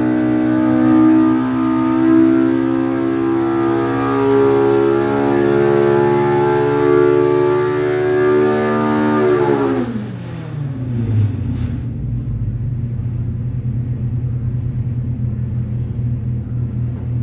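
Polaris RZR Pro R's 2.0-litre four-cylinder engine, fitted with an EVO header and muffler, pulling at full load on an engine dyno: its pitch climbs steadily past 8,600 rpm, then falls sharply about ten seconds in as the run ends, settling to a low idle.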